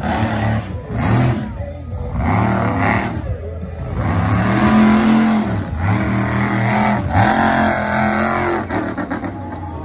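Monster truck engine revving hard in repeated surges as the truck spins on the dirt, its pitch climbing and falling about six times.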